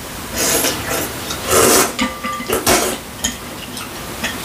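Mugwort kalguksu noodles being slurped, three short slurps in the first three seconds, with light clinks of chopsticks and spoons against glass bowls.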